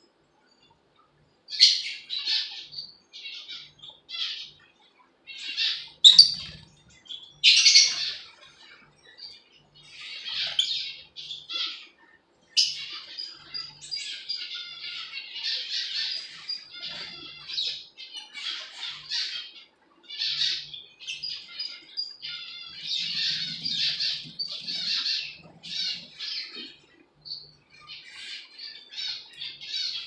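Rosy-faced lovebirds chattering in a run of short, high-pitched squawks and chirps, starting about a second and a half in.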